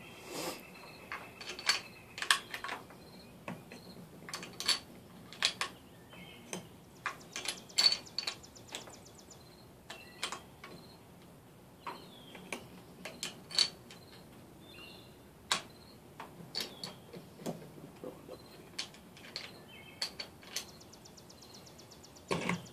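Irregular metallic clicks and clinks of brass .257 Weatherby Magnum cartridges being handled and loaded into a Weatherby Vanguard bolt-action rifle, one or two sharp clicks every second or so.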